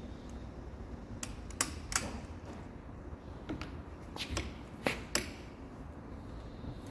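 A handful of sharp, irregularly spaced metallic clicks and taps from hand tools being handled while a big torque wrench is fitted onto a centre-lock wheel nut.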